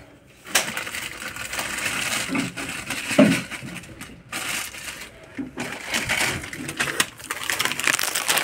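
Plastic snack wrappers crinkling and rustling as a hand rummages through packets of biscuits, in irregular spells with short breaks.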